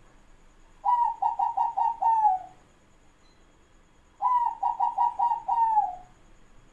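Zebra dove (perkutut) cooing: two phrases, each a quick run of about five short notes ending in a longer note that falls in pitch, the second phrase starting about three seconds after the first.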